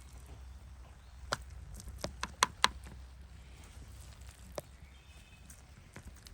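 A few sharp clinks of utensils against dishes while the food is served and eaten, about five taps bunched around two seconds in and one more a couple of seconds later, over a low steady hum.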